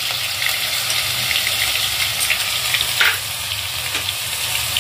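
Garlic and green chilli paste sizzling and crackling as it starts to fry in hot ghee in a kadai, with a brief knock about three seconds in.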